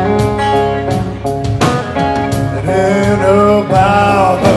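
Live blues music on guitar: picked and strummed notes, with a long wavering note in the second half.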